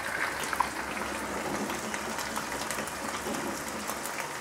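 Finely chopped onions sizzling in hot oil in a kadai as they are tipped in: a steady sizzle with many small scattered crackles.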